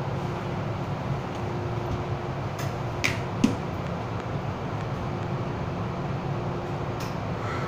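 Steady hum of an MTR M-Train car's air conditioning and ventilation while the train stands at a station, with a constant mid-pitched tone running through it. Two short clicks come about three seconds in, the second one sharp and the loudest.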